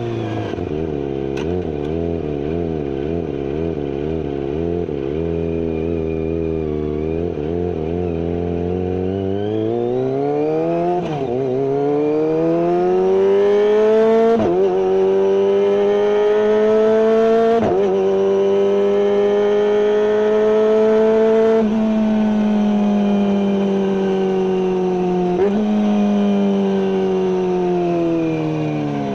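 Kawasaki ZX-25R inline-four engine through a GPR carbon full aftermarket exhaust with no dB killer: idling with a wavering note, then revving up and holding high revs with several brief sharp dips, and falling back near the end.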